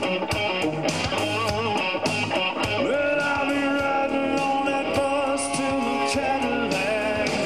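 Live blues-rock band playing amplified through a PA: electric guitars, bass guitar and drum kit in an instrumental passage, with a lead line whose notes bend and waver.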